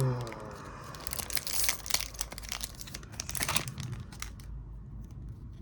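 Foil Pokémon booster pack wrapper crinkling and tearing as it is opened, in irregular crackly bursts that die down about four and a half seconds in.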